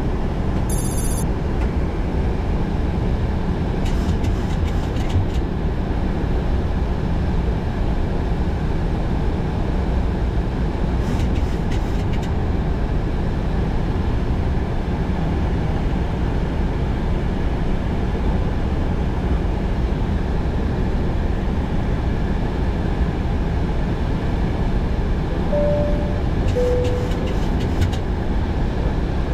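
Steady flight-deck noise of a Boeing 737-800 in descent: air rushing past the cockpit with the engines' drone underneath. Near the end, a short two-note chime sounds, the second note lower.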